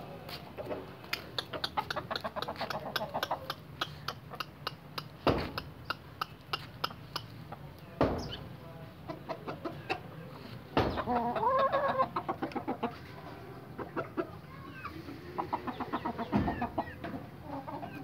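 Chickens clucking in quick runs of short clucks, with a few sharp knocks and a longer pitched call about eleven seconds in.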